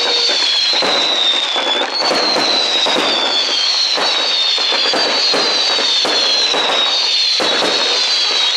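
A fireworks display going off without pause: dense cracking and bangs, with several high whistles overlapping, each sliding slowly down in pitch.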